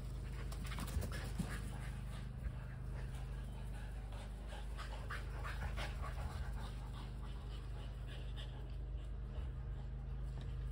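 Kelpie cross and Border Collie dogs panting hard as they run close by, quick breaths in the first half that thin out later, over a steady low hum.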